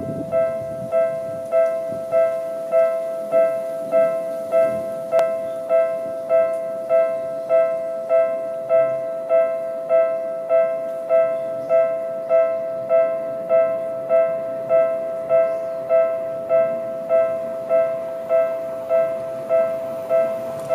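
Japanese railway level-crossing alarm ringing: an electronic two-tone ding repeating evenly, about three times every two seconds. It is the warning that a train is approaching the crossing.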